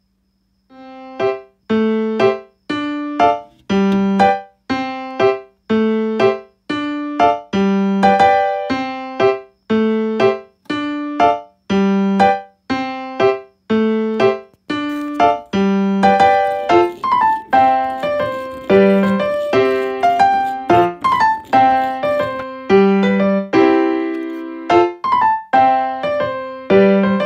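Background keyboard music with a piano sound: a simple melody of single struck notes, about one a second. It starts about a second in and grows fuller, with more notes, from about halfway through.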